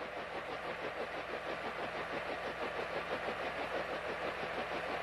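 Bell H-13 helicopter's piston engine running at idle on the ground with the main rotor turning slowly: a steady hum with a rapid, even pulse.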